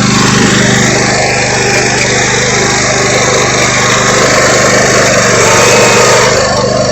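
Riding lawn mower's small engine running steadily as the mower backs up, an even hum with a loud rushing noise over it.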